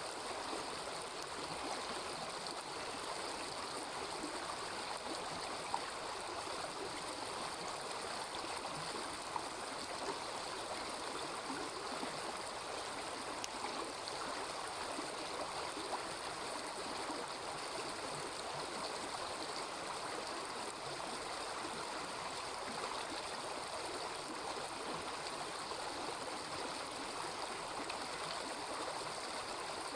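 Small river babbling in a steady, unbroken rush of water. A handful of single sharp pops from the campfire stand out.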